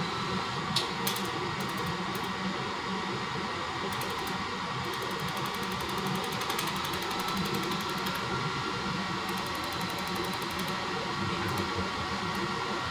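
Steady hum of a laser welding machine's fans and cooling. Runs of fast, faint, regular ticking come from the pulsed laser firing as it lays weld beads on an aluminium cylinder head, with two short clicks about a second in.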